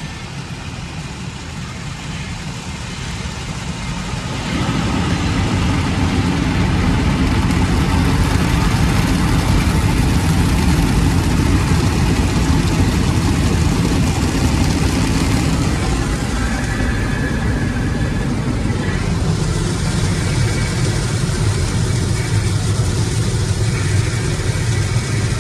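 Automatic car wash heard from inside the car: rotating brushes and water spray working against the body and windows, a steady low rumble with a hiss over it. The rumble grows louder about four and a half seconds in, as the brushes reach the car.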